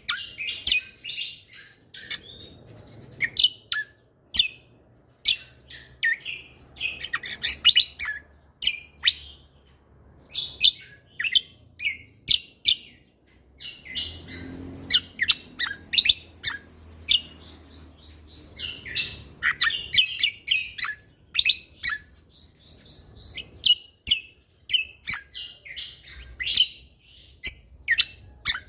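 Cucak kombo (kecial kombok) songbird singing continuously: quick runs of short, sharp, high chirps and trills with brief pauses between phrases.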